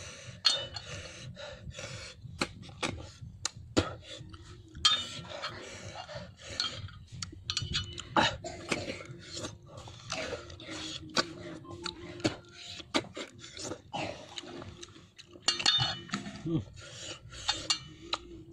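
Cooked snail shells clicking and scraping against a metal plate as they are picked up one by one, in many short irregular clinks.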